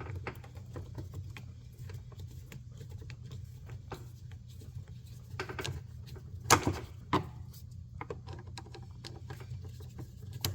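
A screwdriver working a Phillips screw out of the bottom edge of a car door panel: scattered small clicks and scrapes of tool on screw and plastic trim, with a few louder knocks around the middle, over a steady low hum.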